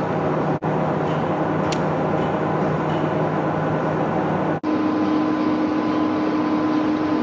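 Steady machinery noise with a constant hum. It breaks off briefly twice, and after the second break the hum sits higher.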